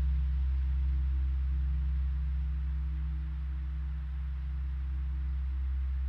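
Ambient background music: a low, steady drone of sustained tones.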